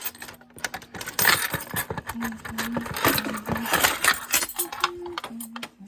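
A bunch of metal keys jangling and clinking as they are handled, in irregular short clinks.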